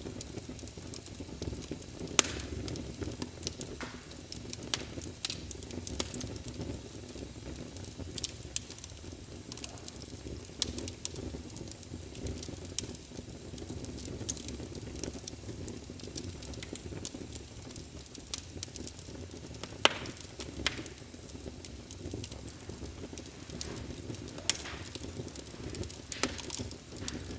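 Wood fire burning in a fireplace: a steady low rumble of flames with irregular sharp crackles and pops, the loudest pops about two seconds in and about twenty seconds in.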